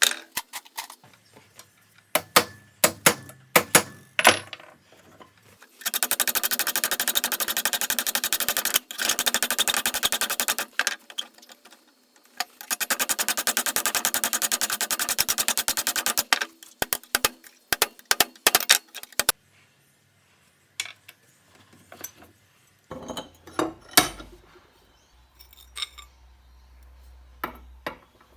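Metal clinks and knocks, with two bursts of rapid mechanical rattling a few seconds apart, each about four seconds long.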